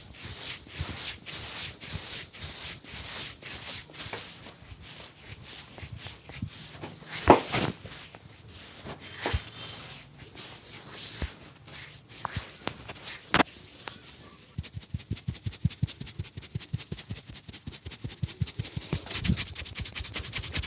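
Barber's hands massaging a customer's head and back: rhythmic rubbing strokes, about two a second, one loud sharp strike about seven seconds in, then a quick steady run of hand taps, several a second, from about two-thirds of the way through.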